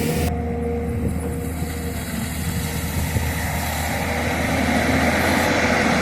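Diesel engine of a Tata Hitachi 210 crawler excavator running steadily, growing louder over the second half.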